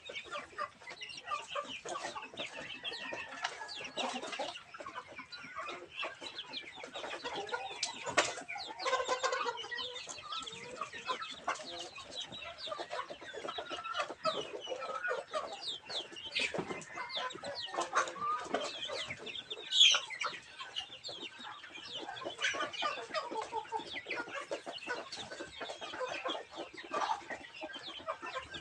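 A flock of young heritage chickens clucking and chirping as they feed at a trough, many short calls overlapping, with scattered taps of beaks pecking at the wooden trough. One call stands out louder about twenty seconds in.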